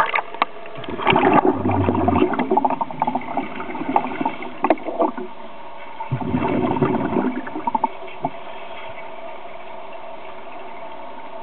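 Underwater pool audio of scuba regulator exhaust bubbles, two gurgling bursts of exhaled breath a few seconds apart with clicks around them, over a steady faint hum.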